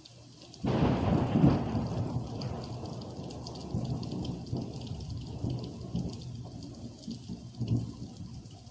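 A thunderclap breaks suddenly about a second in and rolls on as a low rumble that slowly fades, swelling again near the end, over steady rain.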